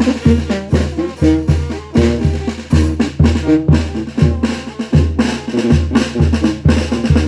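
A Mexican-style brass band (banda) playing: deep bass notes and drums keep a steady, even beat under a brass and reed melody.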